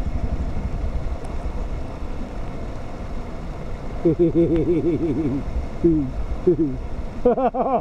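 Low steady rumble of a motorcycle engine running near the creek. About four seconds in, and again near the end, a man's voice calls out in short, wavering sounds.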